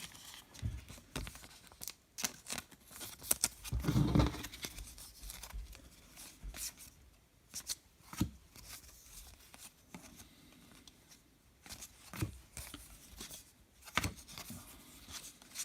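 Baseball trading cards being handled and slid one behind another by hand. Scattered light clicks and scrapes of the card stock, with a louder burst of handling noise about four seconds in.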